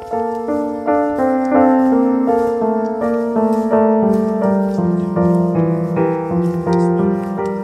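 Background music: a piano playing a melody over chords, each note struck and then fading.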